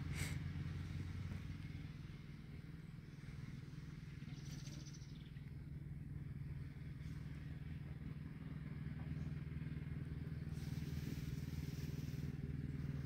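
Faint, steady low hum of an engine running at an even speed, with a brief high hiss about four and a half seconds in.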